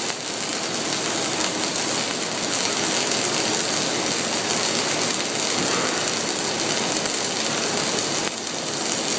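Flux-cored arc welding on a horizontal bevel-groove practice plate: the welding arc runs steadily as a dense crackling hiss, dipping briefly about a second before the end.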